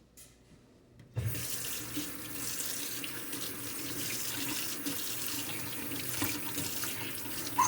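Kitchen sink tap turned on about a second in, then water running steadily into the sink as a knife blade is rinsed under it.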